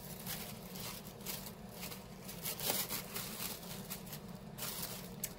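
Packaging crinkling and rustling by hand as a small individually wrapped makeup item is unwrapped, in irregular bursts of short crackles.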